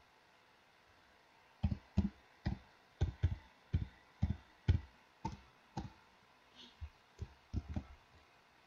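Keystrokes on a computer keyboard: slow, uneven typing of about seventeen key presses, roughly two a second.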